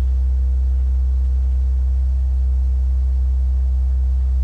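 Electric water pump for a boat's marine toilet running with a steady low hum while it builds up water pressure.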